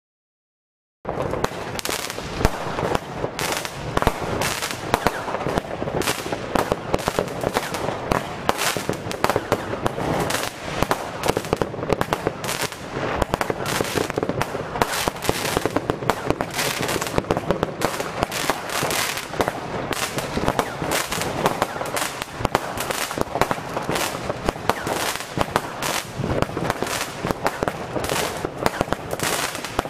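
Weco Impact 36-shot double-effect fireworks battery firing: a dense, unbroken run of shots and bursting pops starting about a second in.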